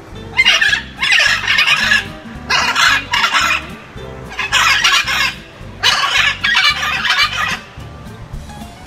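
Blue-and-gold macaws squawking, loud harsh calls in repeated bursts of about a second each.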